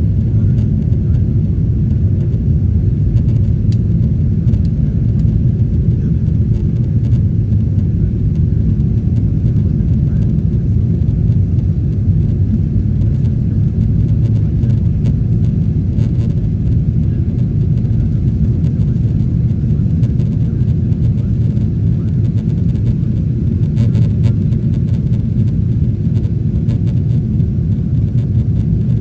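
Boeing 777-300ER cabin noise during the climb after takeoff: a steady, deep rumble of the GE90 engines at climb thrust mixed with rushing air, heard from inside the passenger cabin by the wing.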